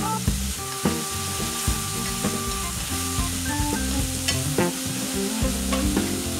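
Ramen noodles, sausage and vegetables sizzling in a hot frying pan as they are stir-fried and tossed with chopsticks, with a steady frying hiss and a few short clicks.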